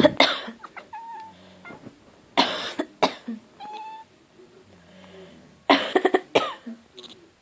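A person coughing in three bouts, and after each bout a cat answers with a short meow.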